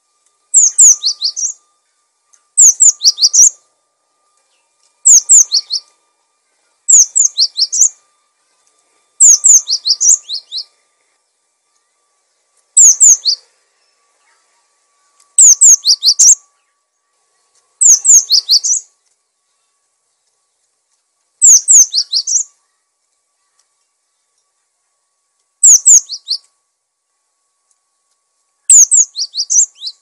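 Cinereous tit (gelatik batu) singing: short, loud phrases of a few high notes, each falling quickly in pitch, repeated about every two to three seconds.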